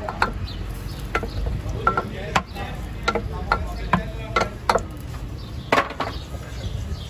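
Kitchen utensils knocking and scraping against a metal sauce pot and a large metal serving tray: irregular sharp clicks, some with a short metallic ring, about every half second, over steady low background noise.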